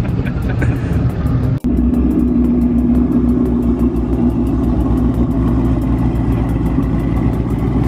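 Supercharged 5.8-litre V8 of a 2013–14 Shelby GT500 running at a steady, loud, deep idle, with a brief break in the sound about a second and a half in.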